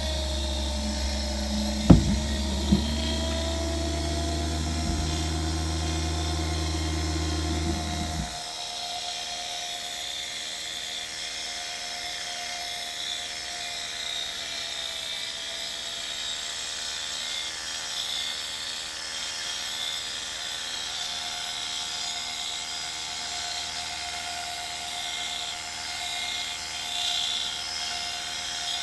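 Electric gyro motor of an aircraft turn-and-slip indicator, powered on the bench, running with a steady high whine. Two sharp clicks come about two seconds in, and a deep hum underneath stops abruptly about eight seconds in.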